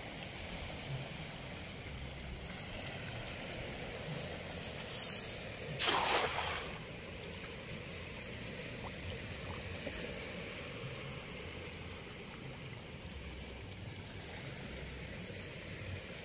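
A cast net lands on the water with one short splash about six seconds in, over a steady outdoor hiss.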